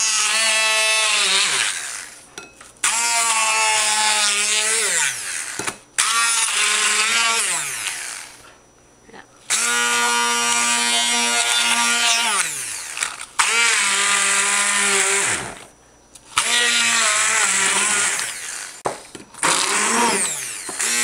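De'Longhi hand-held immersion blender run in short bursts, about seven times, each for a couple of seconds with a quick gap between, its motor whine dropping in pitch each time it is let off. The blade is chopping chunks of apple, onion and spring onion down into a paste.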